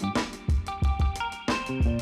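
Background music with drums, bass and guitar and a steady beat.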